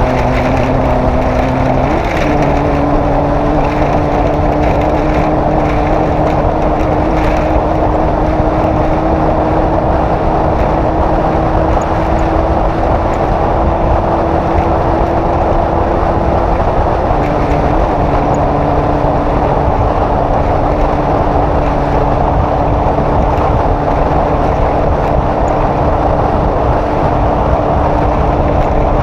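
Off-road race vehicle's engine running hard at a steady pace, under loud, continuous road and wind noise. The engine note steps up about two seconds in and shifts again near the two-thirds mark.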